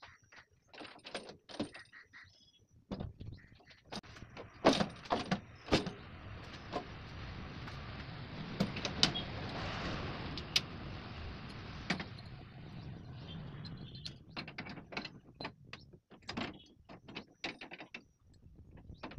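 Steel leveling plate being hitched by hand to a tractor's rear linkage: repeated metal clanks, knocks and rattles of the implement and hitch pins. A steady rushing noise swells up in the middle and fades again.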